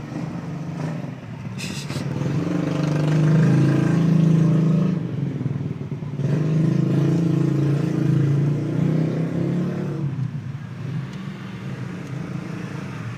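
Motor vehicle engines passing close by, swelling to a peak twice and fading away again.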